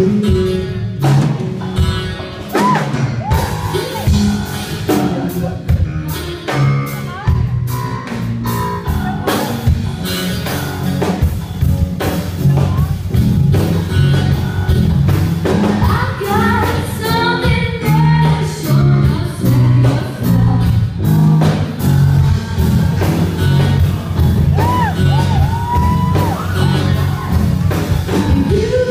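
Live rock band playing: a female lead singer over electric guitar, bass, drum kit and keyboard, with a steady beat.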